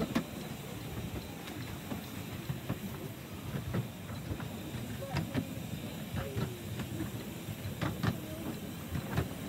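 Miniature steam train running on the line: a steady low rumble with scattered clicks and knocks.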